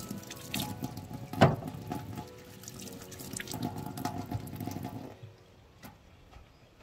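Water running and splashing with small clinks and drips, and one sharp knock about one and a half seconds in; the sound drops off abruptly about five seconds in.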